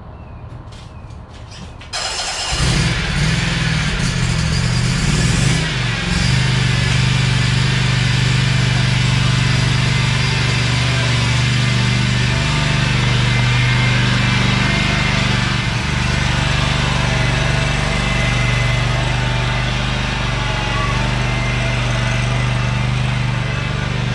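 Blue Clean electric pressure washer switching on abruptly about two seconds in, then running steadily with a loud motor-and-pump hum and the hiss of spraying water.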